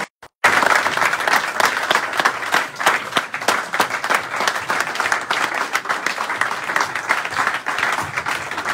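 Small audience applauding: a dense, even run of hand claps, after a brief gap of silence at the very start.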